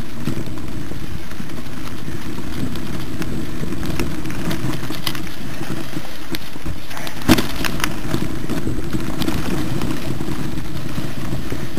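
Mountain bike riding over a rough dirt trail: a steady low rumble of ride and wind noise, with scattered rattles and clicks from the bike and one sharper knock about seven seconds in.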